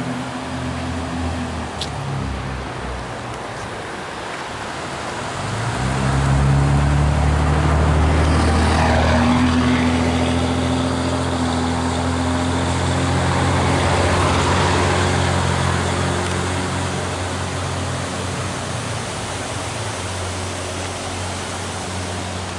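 Car driving along a road: steady engine hum with road and wind noise, growing louder about a quarter of the way in and swelling twice before easing off.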